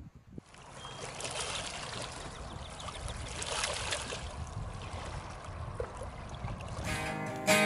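Lake water lapping and trickling among shoreline rocks, an irregular splashing wash. Acoustic guitar music comes in near the end.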